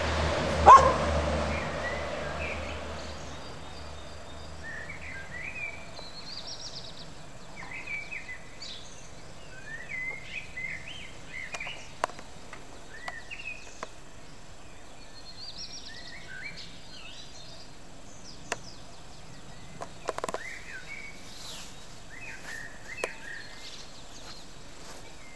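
A dog gives one short bark about a second in. After that, garden songbirds sing in short chirping phrases, repeated again and again.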